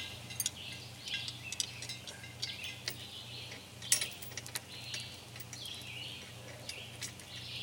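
Sparse metallic clinks of a tripod's hanging chain as a cast-iron Dutch oven is raised a few links over the fire, the loudest clink about four seconds in, with birds calling in the background.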